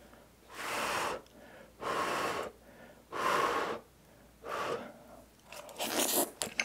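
Four short, breathy puffs about a second apart, blown on a hot tteokbokki rice cake held on chopsticks to cool it. Near the end, wet mouth clicks as the first bite goes in.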